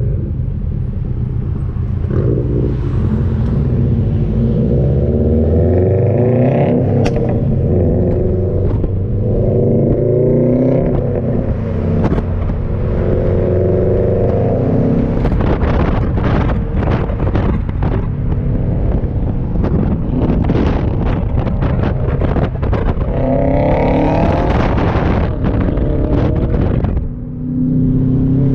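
2019 Subaru WRX STI's turbocharged 2.5-litre flat-four, breathing through a non-resonated Remark cat-back exhaust, accelerating hard in several pulls that rise in pitch and drop at each gear change. A stretch of rapid crackling runs through the middle.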